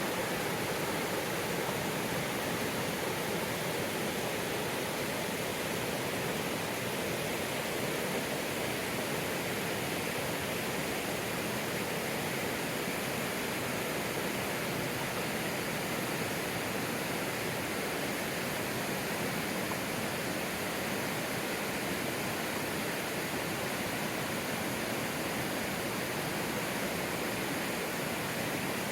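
River water rushing, a steady even noise that does not change.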